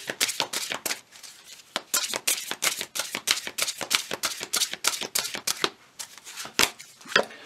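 Tarot deck being shuffled by hand: cards slapping together in quick strokes, about five a second, with a short pause about a second in and fewer strokes near the end.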